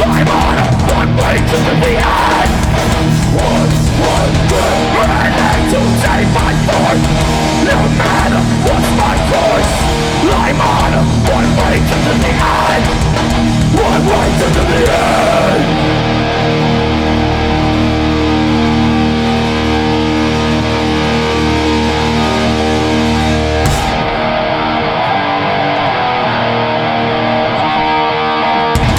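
Hardcore metal band playing live, loud, with distorted electric guitars, bass and drums. About halfway through, the drums drop out and the guitars and bass ring on in held chords; near the end, the bass also drops away, leaving the guitar.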